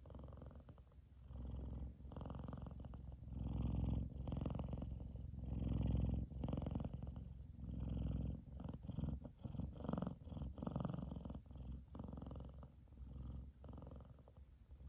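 F2 Savannah cat purring loudly while asleep. The purr swells and fades with each breath, loudest in the middle, the swells coming quicker in the second half.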